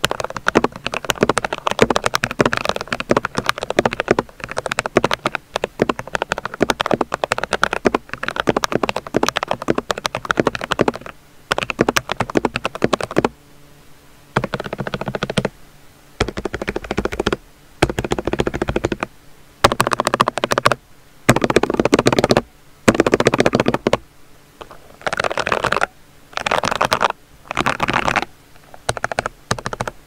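Typing on a Womier K87 mechanical keyboard with Gateron Yellow linear switches: a steady stream of key clacks for the first dozen seconds. After that the key presses come in short rapid bursts of about a second each, with brief pauses between.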